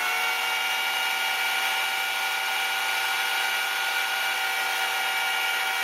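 Electric chainsaw running at a steady full-speed whine over a harsh hiss, its chain run against a rock on asphalt to dull it.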